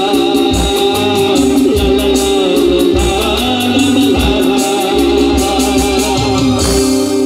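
Live band music through a PA system, with electric guitars and keyboards: long held notes over a steady beat.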